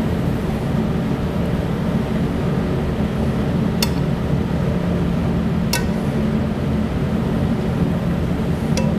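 Metal kitchen tongs clinking sharply three times, about two seconds apart, as broccoli is lifted from a pan onto a plate, over a steady low hum.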